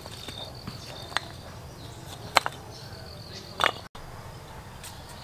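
Red clay bricks knocking together with three sharp clacks as they are handled in a woven basket, over steady high insect chirring.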